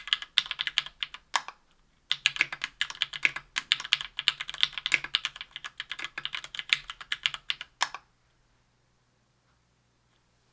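Fast typing on a 60% aluminium-case, aluminium-plate mechanical keyboard (KBDfans Tofu) with lubed SP-Star White Meteor 57g linear switches and GMK keycaps. There is a short break about a second and a half in, then the typing stops about eight seconds in.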